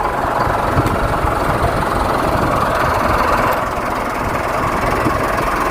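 A vehicle engine running steadily at low speed, with a rough, knocking low end.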